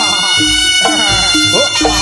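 Live Javanese jaranan gamelan music: struck gong and drum beats at a steady pulse of about two a second under sustained ringing tones.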